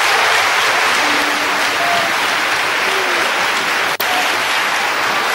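Theatre audience applauding steadily, a dense clapping with a few faint voices calling out over it. A brief dropout in the sound about four seconds in.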